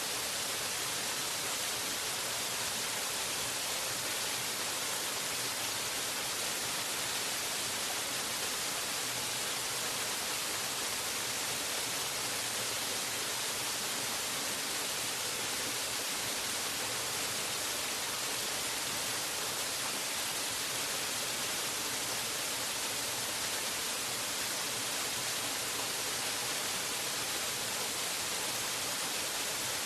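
Waterfall rushing steadily: an even hiss with most of its weight in the high range and no separate splashes standing out.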